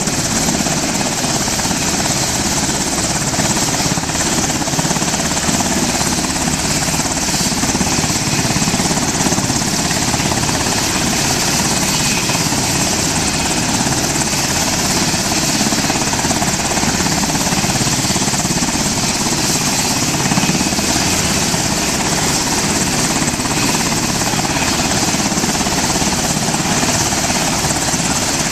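Navy MH-60S Knighthawk helicopter running on the ground with its rotors turning, before lift-off: a steady, loud mix of twin turboshaft turbine whine and rotor noise.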